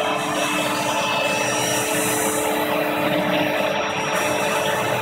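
A ShopBot CNC router's spindle running while its bit mills gingerbread, together with a vacuum cleaner running to power the vacuum hold-down table. The result is a steady drone with a couple of steady tones.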